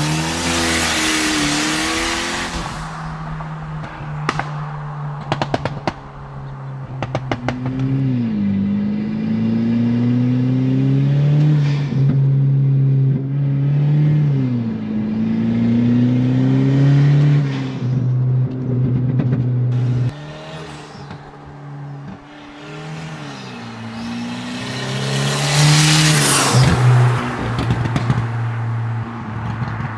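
Turbocharged 2.0-litre four-cylinder of a modified Kia Optima running an open dump pipe, accelerating hard and revving up and down several times through the gears. A loud rushing hiss comes near the start and again near the end, with sharp crackles in between.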